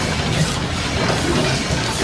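Overhead line shaft and countershaft running: flat drive belts and pulleys clattering and rumbling steadily while the belt is shifted across onto the driving pulley to set the lathe turning.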